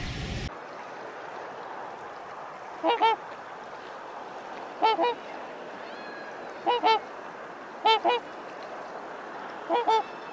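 A goose honking: five short two-note honks, roughly one every two seconds.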